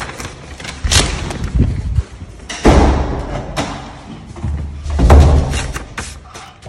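Wooden corridor fire doors being pushed open and banging: three heavy thumps, about one, two and a half and five seconds in.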